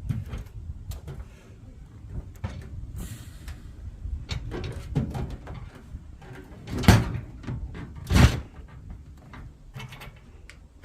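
Scattered knocks and clunks of an aluminum storage box being handled and set into place for a test fit, with two loud thumps a little over a second apart late on.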